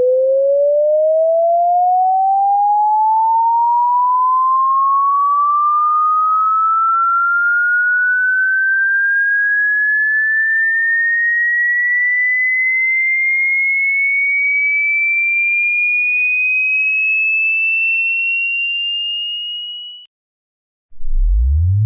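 Electronic sine-wave tone sweeping slowly and steadily up in pitch, from a mid hum to a high whistle, fading and cutting off about twenty seconds in. After about a second of silence a new sweep starts from very low near the end.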